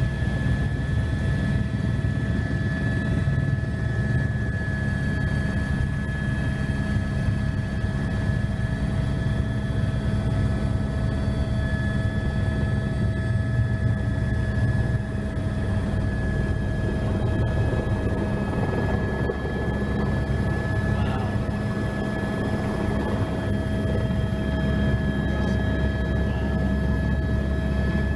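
Helicopter's turbine engine and rotor running steadily, heard from on board: a constant low drone with a steady high whine over it.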